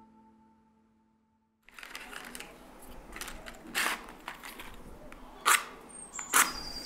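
The last held chord of music fades away into a moment of silence, then a match is struck against the side of a matchbox several times, short scrapes with the last two the loudest.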